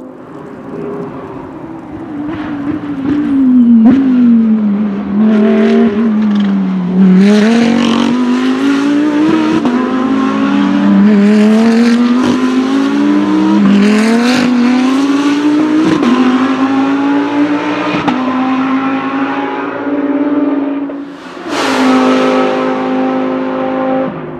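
GT3 race car's V10 engine at speed on track, its pitch repeatedly sinking and then climbing again through the gears. A sudden, louder and brighter blast of engine sound comes in near the end.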